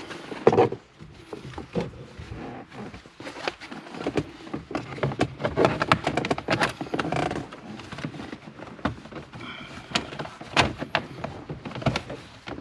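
Irregular clicks, knocks and rattles of plastic car interior trim and parts being handled and fitted back into place, many sharp taps in quick succession.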